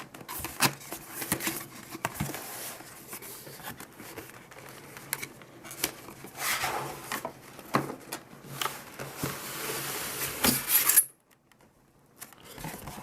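Cardboard box and packaging being handled and emptied: an irregular run of rustling, scraping and sharp knocks, which drops away suddenly near the end.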